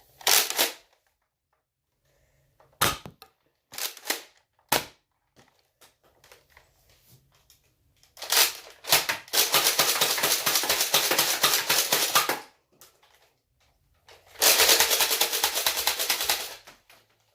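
Toy foam-dart blaster being worked: a few single sharp clicks, then two long bursts of rapid, even clicking, the longer lasting about four seconds.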